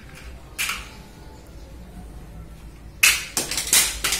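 Toy suction-dart rifle being handled and loaded: a short scrape about half a second in, then a quick run of sharp plastic clacks about three seconds in.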